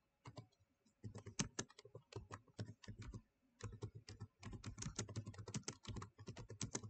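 Quiet typing on a computer keyboard: runs of rapid key clicks, with short pauses about a second in and again just after three seconds.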